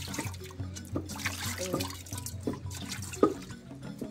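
Water being poured and sloshing over raw meat in a metal bowl, in a run of short splashes, with one sharp knock a little over three seconds in. Background music plays underneath.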